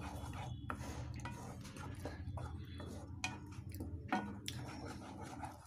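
Wooden spatula stirring and scraping thick frying masala paste around a kadai, with irregular soft knocks against the pan over a steady low hum.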